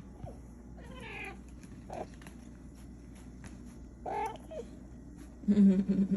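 Cats meowing, three short wavering meows spread over the first few seconds, then a louder, longer low-pitched cat call near the end.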